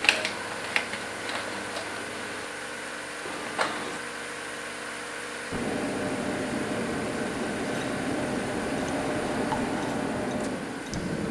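A film box and its paper wrapping handled, giving a few sharp clicks and crinkles, then a steady mechanical hum that starts suddenly about five and a half seconds in.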